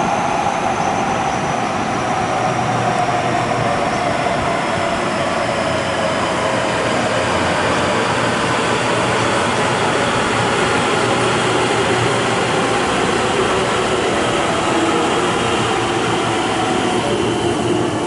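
JR West electric train running into the station out of a tunnel and passing close alongside the platform, with a steady rumble of wheels on rail. Over the rumble a whine falls slowly and evenly in pitch.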